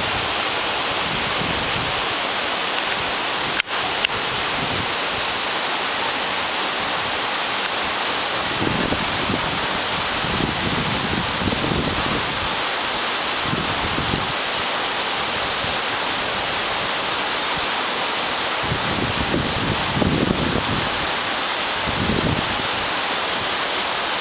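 Waterfall running strong after heavy rain, pouring into a plunge pool: a steady, even rush of falling water. Now and then low rumbles of wind buffet the microphone.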